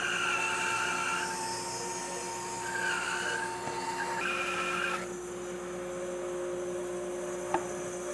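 Bandsaw running, resawing a thick hardwood board: a steady hum with higher whining tones from the cut that come and go and drop out about five seconds in. A sharp click about seven and a half seconds in.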